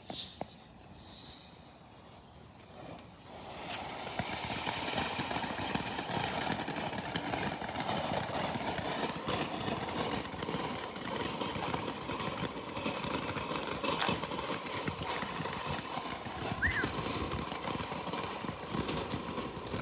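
Glittering Fountain ground firework: quiet for about the first three seconds after lighting, then it catches and sprays sparks with a steady hissing crackle that keeps going.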